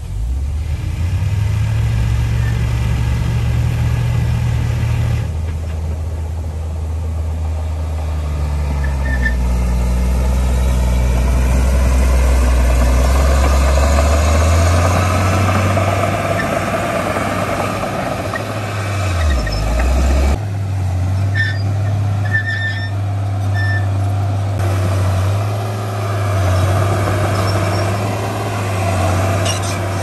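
Heavy diesel earthmoving machinery running under load, its engine note stepping up and down. A rush of noise swells in the middle, and a few short high squeaks come about two-thirds of the way through.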